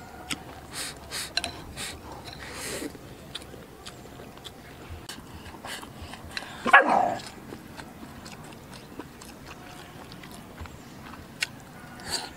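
Eating sounds: wooden chopsticks clicking against a ceramic rice bowl and chewing, broken by a single short dog bark about seven seconds in, the loudest sound.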